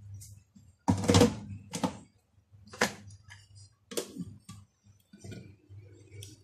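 Four sharp knocks of kitchenware being handled and set down, about a second apart, over a low steady hum.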